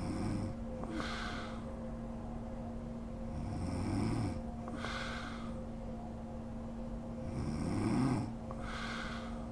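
A sleeping woman snoring, with a low snore on each in-breath followed by a breathy out-breath. The cycle comes about every four seconds, three breaths in all.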